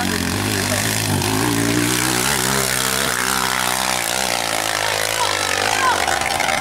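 Dirt bike engine revving under load as it climbs a steep muddy slope, the revs rising and falling.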